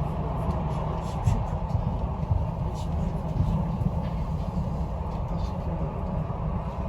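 Passenger train running on rails: a steady rumble with a few faint clicks.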